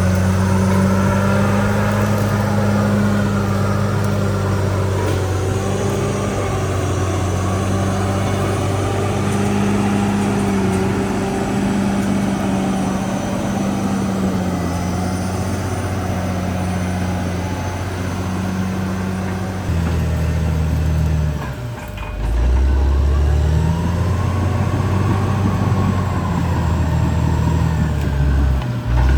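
Caterpillar D6R XL bulldozer's diesel engine running steadily with a low hum. About twenty seconds in it drops briefly in pitch and loudness, then picks up again with a whine rising and falling above it.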